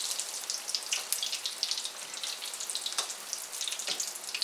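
Breaded chicken croquettes deep-frying in very hot oil in a wok, a steady bubbling crackle and sizzle. A couple of sharper clicks stand out about three and four seconds in.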